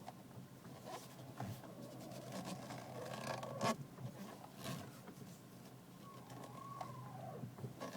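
Mazda 3's steering creaking as the steering wheel is turned: two drawn-out, wavering squeaks over a low steady hum, the first ending in a sharp click about three and a half seconds in.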